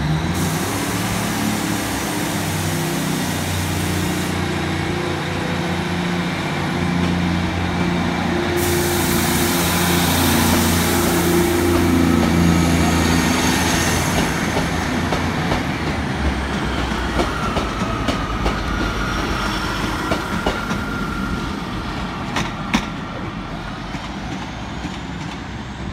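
Two coupled GWR Class 150 Sprinter diesel multiple units pulling out under power, their underfloor diesel engines working hard for the first dozen seconds or so and then fading as the train draws away. Wheels click over the rail joints near the end.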